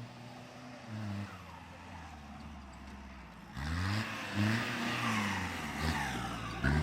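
An off-road 4x4's engine running low, then revved up and down several times from about halfway through, with a rushing noise over it.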